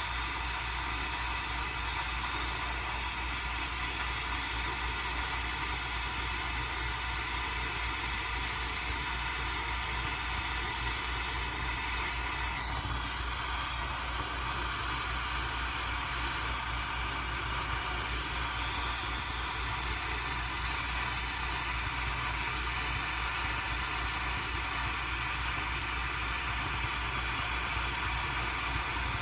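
Jeweller's soldering torch burning with a steady hiss and low rumble as silver solder is flowed into the seams of a sheet-silver box.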